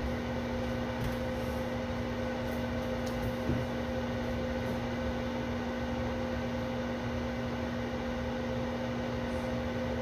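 Microwave oven running: a steady, even hum over a constant hiss.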